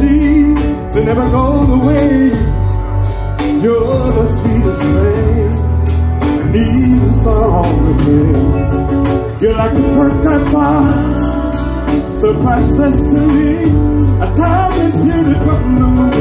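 Live R&B band music with a steady drum beat, bass and a sliding melodic lead line.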